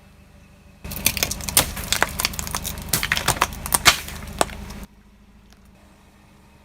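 Bulldozer's engine running under a rapid string of sharp cracks and snaps, like wood splintering and breaking. The cracks are the loudest part. It starts suddenly about a second in and cuts off abruptly near five seconds, leaving only a faint hum.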